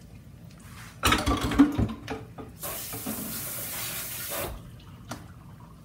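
A clatter of knocks at a kitchen sink, then the tap runs for about two seconds and is shut off abruptly.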